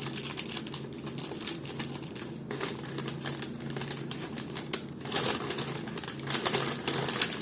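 Rapid light clicks and rustling of food packaging being handled, growing denser about five seconds in, over a steady low hum.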